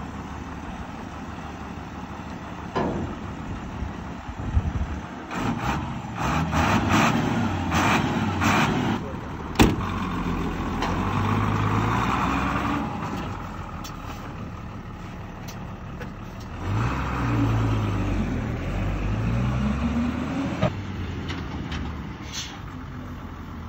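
1987 Mitsubishi Fuso truck's diesel engine running as the truck moves off, revving up and falling back several times. There is a clatter of knocks a few seconds in and one sharp knock just under ten seconds in.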